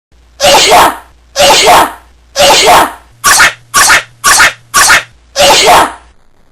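A man sneezing over and over in a playful, put-on series: three long sneezes, then four short quick ones, then one more long one.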